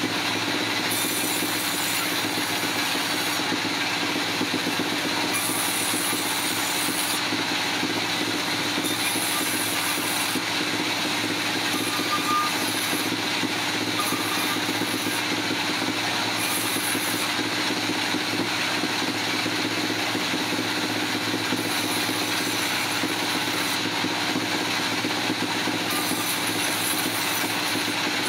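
Heavy machinery running steadily at a constant level, with a high hiss that comes and goes every second or two.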